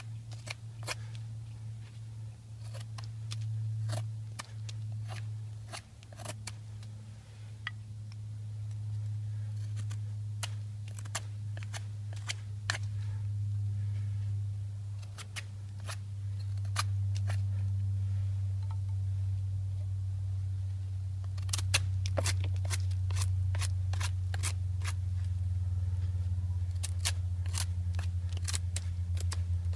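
Wood fire crackling with many scattered sharp pops over a steady low hum, the pops coming thickest in the second half.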